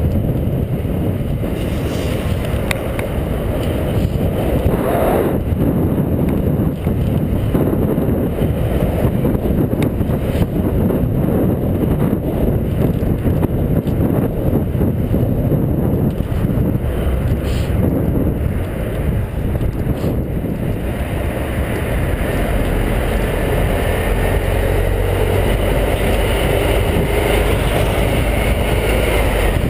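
Wind buffeting the microphone of a camera on a moving bicycle, mixed with road and street-traffic noise. From about two-thirds of the way in, a steady engine hum joins as an articulated city bus runs close alongside.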